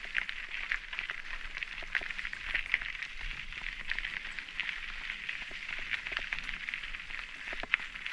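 Mountain bike tyres rolling over loose gravel: a steady crunching hiss with many small clicks of stones under the tyres.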